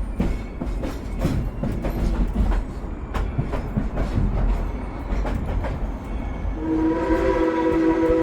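A narrow-gauge steam train rolling, with a steady rumble and irregular clicks of wheels on rail joints. About six and a half seconds in, the 1938 Baldwin locomotive's steam whistle starts sounding a long, steady chord.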